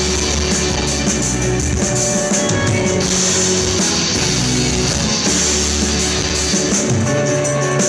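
Live rock band playing guitars over a drum kit, with no singing.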